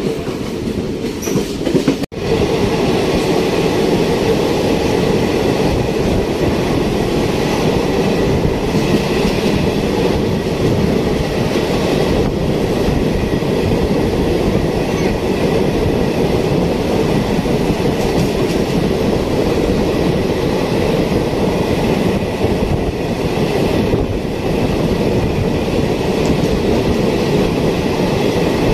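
Steady loud running noise of an ICF-rake passenger train at speed, heard at the open coach door: wheels rumbling and rattling on the rails along with rushing air. The sound cuts out for an instant about two seconds in.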